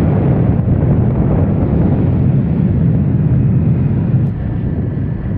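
Wind buffeting a riding camera's microphone at road speed, a steady low rumble, with the scooter's running and road noise mixed in beneath it. The rumble eases slightly about four seconds in.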